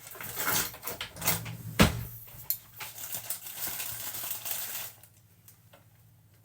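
Corn flour being scooped and measured out: rustling and scraping with small clicks, and one sharp knock a little under two seconds in. It stops about five seconds in.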